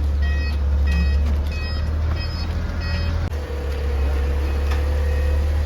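A car engine running with a steady low hum while a warning beeper repeats about three times a second. The beeping stops about three seconds in and the hum drops a little, leaving a faint steady tone over the engine.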